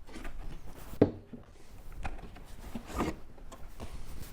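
Leaf-blower tubes being handled and lifted out of their cardboard box: light rustling of packing, with a sharp knock about a second in and a softer one about three seconds in.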